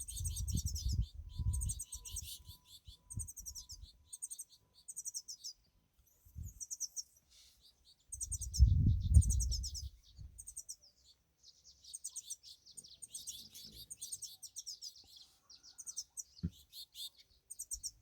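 Several small songbirds chirping and twittering in quick, repeated high notes throughout. Low rumbling bursts come in the first few seconds and again, loudest, about nine seconds in.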